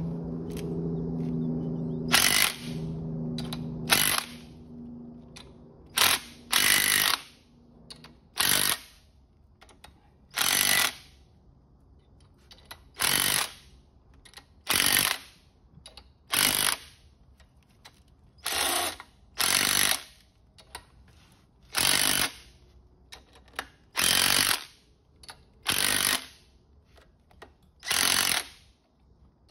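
Cordless impact driver hammering in short bursts, about one every two seconds, as it turns the bolts of a homemade puller plate to draw the pinion gear and bearings out of a Ford Model A differential housing. A steady low hum fades out about four seconds in.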